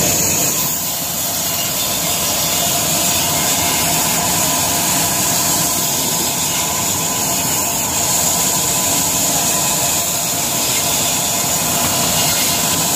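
Belt-driven vertical band saw running steadily as its blade cuts through chunks of firewood, a constant machine noise with a high hiss.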